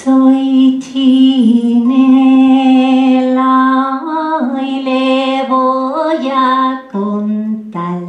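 A woman sings a slow, wordless melody in long held notes that slide between pitches, to her own strums on a small plucked stringed instrument. There are two strums, one at the start and one about a second in.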